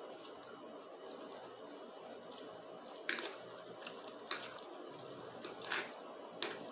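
Faint wet chewing of a mouthful of spaghetti, with a few short clicks as a metal fork twirls pasta in a plastic plate.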